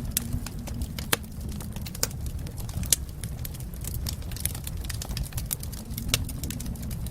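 Wood fire crackling: irregular small pops and snaps, a few of them sharper, over a steady low rumble.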